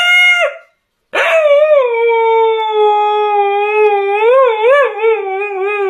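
Husky howling: a howl that breaks off just after the start, then after a brief silence one long howl that slides down in pitch and wavers near the end.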